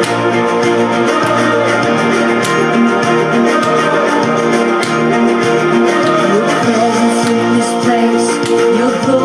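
Recorded worship song playing at a steady level, with guitar, held chords and some singing.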